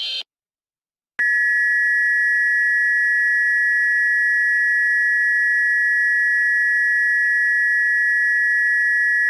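Emergency Alert System attention signal, pitched up: a steady, shrill two-tone alarm that starts about a second in and holds without a break. Just before it, a buzzing digital header burst cuts off.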